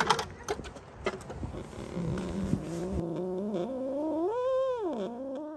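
A cat meowing: one long, drawn-out meow that starts low, rises in pitch and falls away again near the end.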